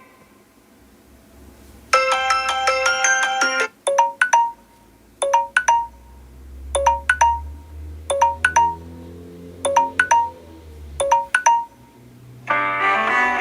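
Samsung Galaxy S6 Edge Plus stock ringtone playing: a quick run of bright bell-like chimes, then short two-note chime figures repeating about every one and a half seconds over a low hum. Near the end the next ringtone starts, a fuller tune.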